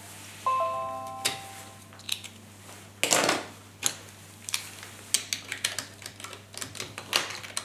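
A Windows USB device chime, a few short notes about half a second in, then the clicking and clattering of plastic USB thumb drives being pulled out and picked through on a wooden table, with a brief scrape about three seconds in.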